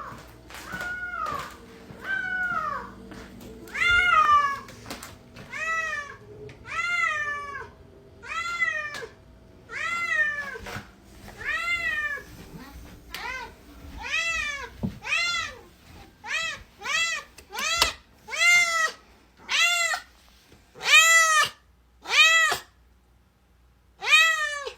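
Cat meowing over and over, about one meow a second, each call rising then falling in pitch. The meows come faster and louder in the second half, with a short pause near the end.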